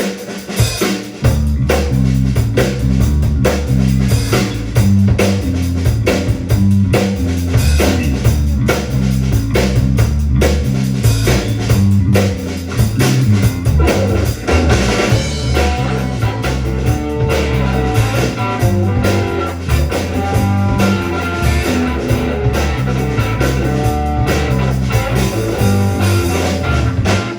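Rock band playing live with drum kit, bass and guitar: an instrumental passage with a steady beat, the bass coming in about a second in.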